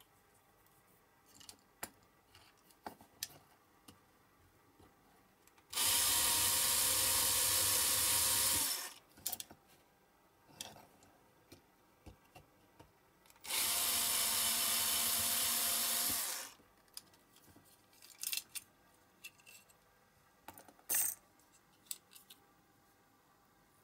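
Electric drill running twice, about three seconds each time, drilling out the rivets of a Matchbox diecast metal base to dismantle the model. Between the runs and after them, light clicks and taps of small metal parts being handled.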